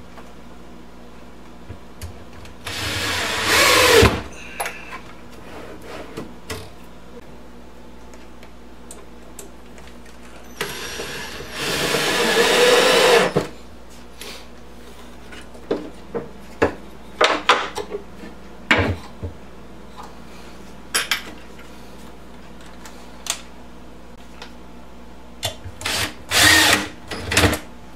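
Power saw cutting a wooden shelf board to width in three short bursts, with sharp knocks and clatter of the board and tools in between.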